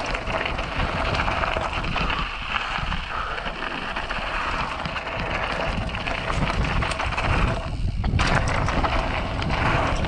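Mountain bike riding down a rocky dirt singletrack: tyres running over dirt and stones, with wind rushing on the microphone. The noise dips briefly a little before eight seconds in.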